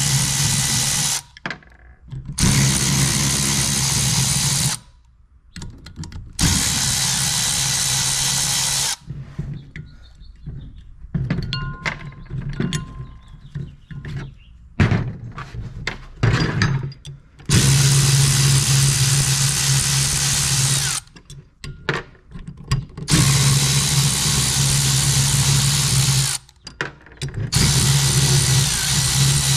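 Cordless power driver spinning in repeated runs of one to four seconds, working the bearing retainer screws on alternator end housings. Between the runs, light clicks and clinks of metal parts being handled.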